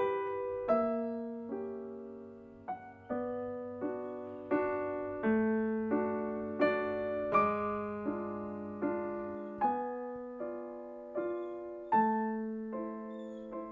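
Background music: slow, gentle solo piano, a new chord struck about every three-quarters of a second and left to ring and fade.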